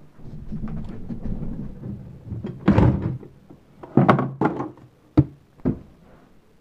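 A low rumbling hum, then a string of about five sharp thumps and knocks, the loudest about two and a half seconds in.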